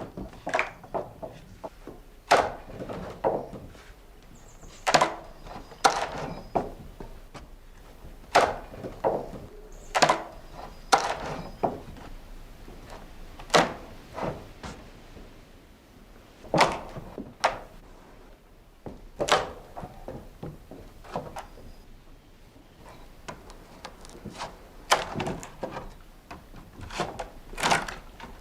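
A series of irregular hard knocks and clatters, wood striking wood, about one every second or two, some in quick pairs, over a faint steady low hum.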